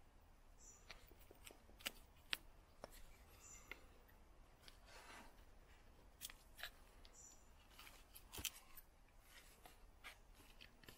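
Joker Nessmuk knife blade carving wood: faint, irregular scraping cuts and sharp clicks as the blade shaves and snaps off wood.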